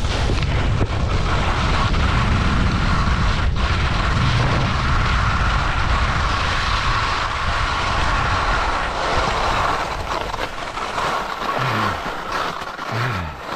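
Skis scraping and chattering over crusted snow on a fast descent, with wind rushing over the helmet-mounted camera's microphone. It eases somewhat after about ten seconds.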